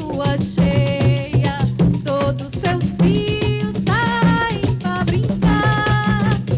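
Live coco de roda band music: a steady, driving drum beat and hand percussion with a melody line over it.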